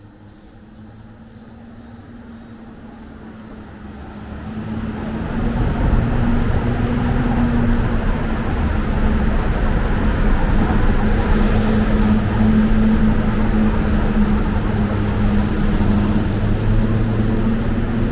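A motor vehicle's engine and road noise grow louder over about the first six seconds, then stay loud and steady with a low hum.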